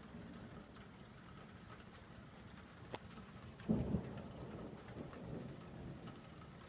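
Steady rain with a rumble of thunder starting almost four seconds in, the loudest sound, fading out over the next two seconds. A single sharp click comes just before it.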